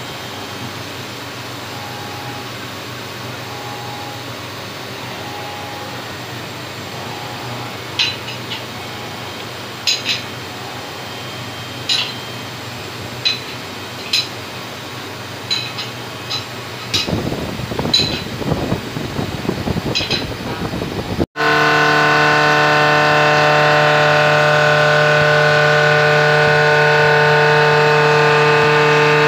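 Machine-shop hum with a few short beeps and scattered clicks, then, after an abrupt cut, a CNC milling machine's spindle running steadily as the end mill cuts the steel mold cavity under coolant: a loud, steady whine of several tones.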